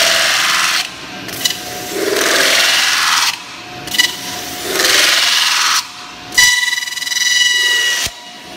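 Metal spinning lathe working a spinning sheet-metal cone: the tool rubs and scrapes against the rotating workpiece in repeated passes of about a second and a half, with short pauses between, and a thin ringing tone from the metal.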